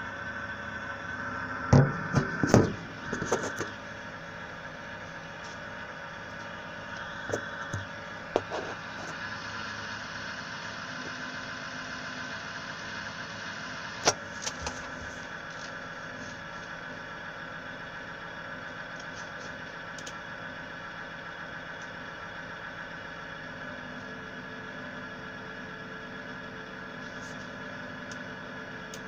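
Ig-Max 1607 500W PC power supply running: a steady fan hum with several fixed tones held throughout. A few loud knocks come about two to three seconds in, and single sharp clicks follow later.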